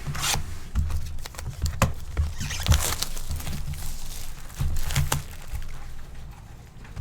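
Trading card packs and cards being handled and opened: irregular foil-wrapper crinkling and rustling, mixed with soft knocks.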